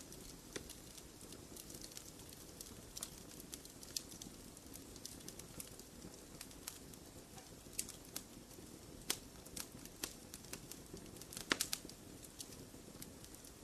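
Fireplace fire crackling: a soft steady hiss of flames with irregular sharp pops and snaps, a quick cluster of them near the end.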